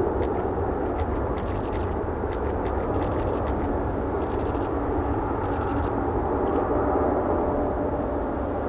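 Boeing 787-8's GEnx turbofan engines running steadily at low taxi power as the airliner lines up on the runway before its takeoff roll.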